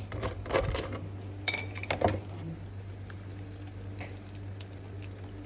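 Dishes and utensils clinking and knocking as they are handled on a kitchen counter, several times in the first two seconds, over a steady low hum.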